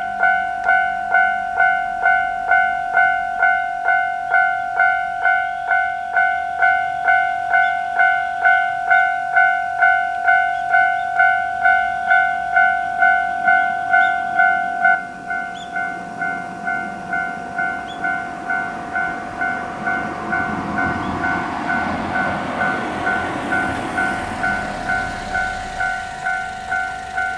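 Japanese railway level-crossing warning bell ringing its steady 'kan-kan', about two strokes a second. It turns quieter about halfway through. From about 20 s a passing train's running noise swells up under the bell.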